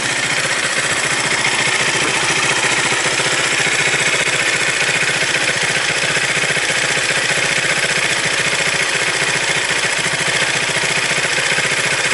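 Zontes Tiger 125cc motorcycle's air-cooled single-cylinder engine idling steadily.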